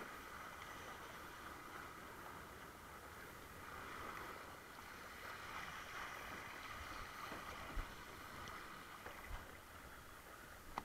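Steady hiss of water rushing past a longboard windsurf board under sail, with a few brief low thumps in the second half.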